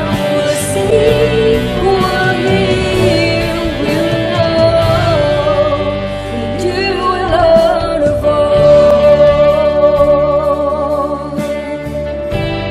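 Worship song playing: singing over guitar-led accompaniment in a Christian praise style.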